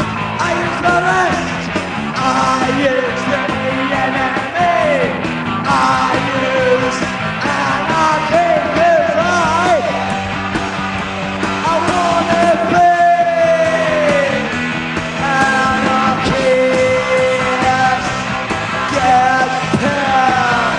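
Punk rock band playing live: a shouted, sneering lead vocal over loud electric guitars, bass and drums.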